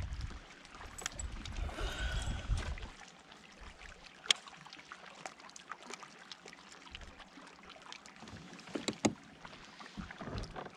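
Hobie kayak moving on the water: water against the hull with a low rumble for the first three seconds, then scattered light clicks and knocks from the hull and gear.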